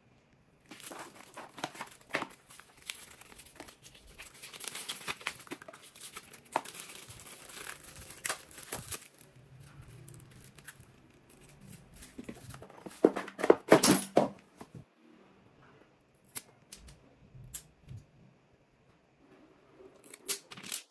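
Packaging wrap crinkling and tearing as accessories are unwrapped from their box, in irregular rustling handfuls, loudest about thirteen to fourteen seconds in. Near the end a few sharp clicks and taps of things being handled.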